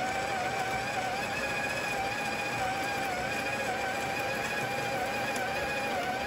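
Breville Smart Grinder Pro's motor running steadily with a whine as its burrs grind a single dose of coffee beans pressed down by the hopper's piston. The pitch wavers slightly and dips briefly near the end.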